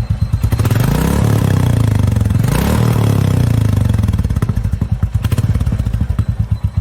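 Royal Enfield Classic 350 BS6 single-cylinder engine idling through its exhaust in distinct pulses. It is revved up, rising and falling about one to three seconds in, then settles back to a slow idle.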